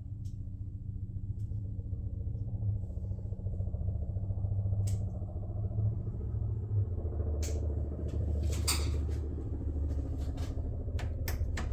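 A steady low motor rumble that shifts pitch a little midway, with scattered sharp clicks and taps of parts being handled.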